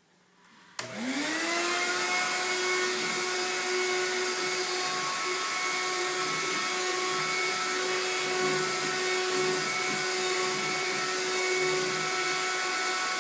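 Vacuum cleaner switched on with a click about a second in; its motor spins up with a rising whine over about a second, then runs steadily.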